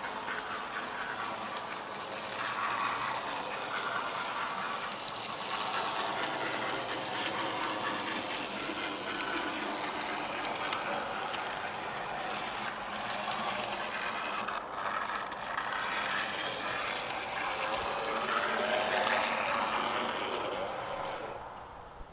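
N gauge model tank locomotive running on its track: a steady motor whirr with fast clicking of the small wheels over rail joints as it hauls a coach. Loudest shortly before it cuts off near the end.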